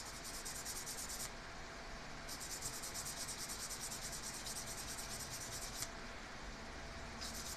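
Sandpaper rubbed back and forth in quick strokes over the thin metal contact of a horn button, scrubbing the contact clean. The scratching stops briefly twice.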